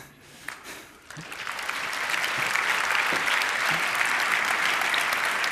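Audience applauding, starting about a second in and building to steady clapping.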